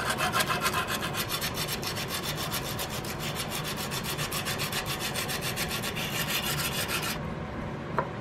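Sandpaper rubbed by hand in quick, even back-and-forth strokes along an iron muzzleloader trigger guard, smoothing the metal to an even finish. The strokes stop about seven seconds in, and a light tap follows.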